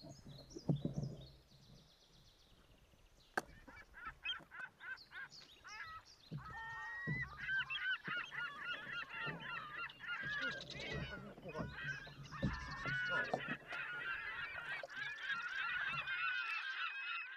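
A flock of birds calling, many overlapping goose-like calls at once, growing fuller from about four seconds in. A few faint knocks come before it, with a sharp click at about three seconds.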